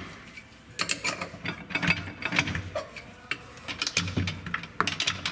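Irregular metallic ratcheting clicks as the 47/48RE transmission's output shaft is turned with channel-lock pliers: the parking pawl clicking over the park gear teeth while the valve body's park rod is worked into alignment.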